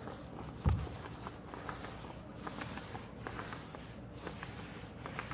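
Microfiber paint roller, 9-inch with a 9/16-inch nap, rolling paint onto a wall: a steady hiss that comes in strokes about once a second. There is one low thump about a second in.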